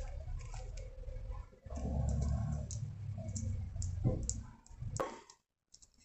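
Faint handling sounds of hands working black fabric with a needle close to the microphone: low bumps and rustling with scattered light clicks.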